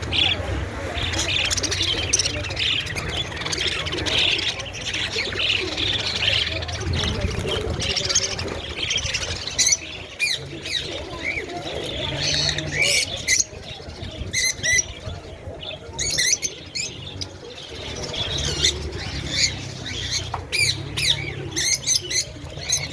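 Many small caged parrots chattering and squawking: a dense stream of short, high chirps at first, then sharper, more spaced squawks in the second half, over a low rumble.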